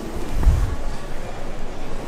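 Handling noise from a camera microphone brushing against clothing fabric: a low rumbling rustle with a bump about half a second in.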